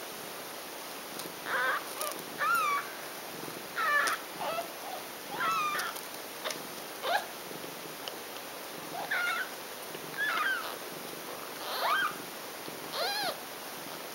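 Newborn kittens mewing while nursing: about ten short, high-pitched mews, each with a quick rise and fall in pitch, roughly a second apart.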